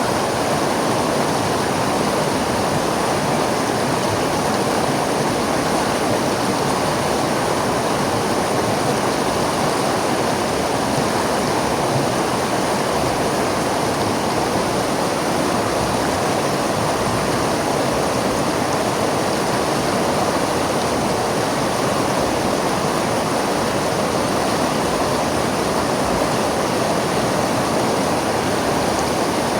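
River water flowing and rushing steadily over rocks, a constant even rush with no breaks.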